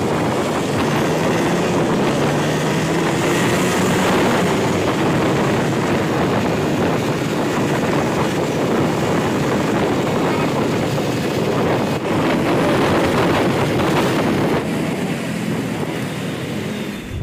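Wind rushing over the microphone of a moving motorcycle, with its engine running underneath in a steady, dense noise.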